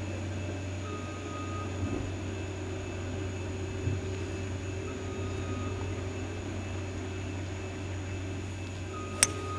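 Steady low hum, then about nine seconds in a single sharp crack of a golf club striking the ball.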